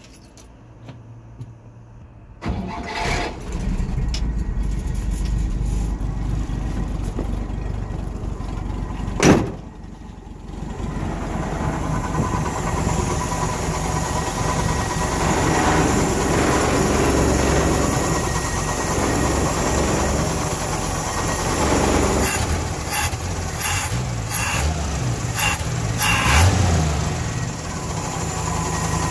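A 1967 Chevrolet C10's inline six-cylinder engine starts about two seconds in and then idles steadily. A brief loud noise comes about nine seconds in. Several sharp clicks or knocks sound over the engine near the end.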